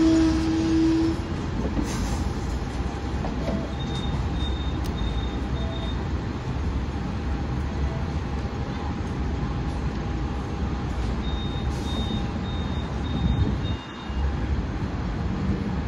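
Hong Kong double-decker tram running on street tracks: a steady low rumble of wheels and running gear, with a short steady whine in the first second. Two runs of short, high beeps sound, about four seconds in and again near the end.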